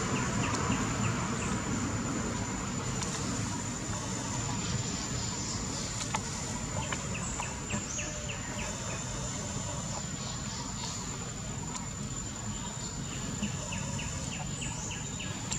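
Forest insects keep up a steady, thin, high-pitched drone. Three times a run of quick high chirps, several a second, sounds over it, with a low, even background hiss.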